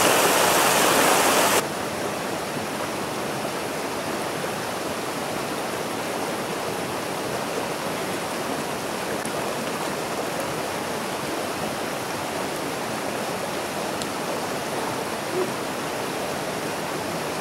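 Rushing water of a small rocky mountain stream: loud close rapids at first, then about a second and a half in it drops suddenly to a softer, steady rush of a pool fed by a small cascade.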